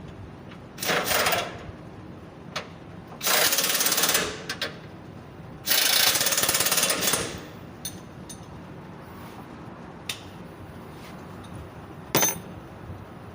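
Power impact wrench run in three bursts of about one to one and a half seconds each, hammering bolts tight, with a few light metal clinks between and one short burst near the end.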